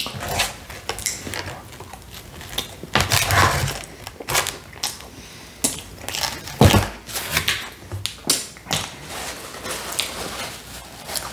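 Close-miked eating sounds: a fork scraping chocolate lava cake from its container on a cardboard pizza box, with wet chewing and lip smacking. There is one sharp knock a little after halfway, and a paper napkin crinkles near the end.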